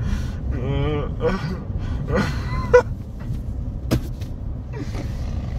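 Groggy, slurred vocal sounds from a young man just out of wisdom teeth surgery, over the steady low rumble of road noise inside a moving car. There is a sharp click about four seconds in.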